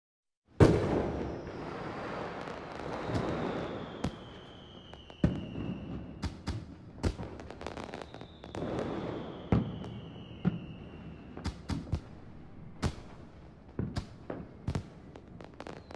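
Fireworks going off: a loud bang about half a second in, then scattered sharp bangs over a crackling noise, with thin whistling tones that slowly fall in pitch.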